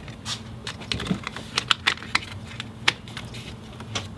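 Hands working the plastic battery-terminal cover and fuse holder at a car battery's positive terminal: a quick, irregular run of light plastic clicks and snaps.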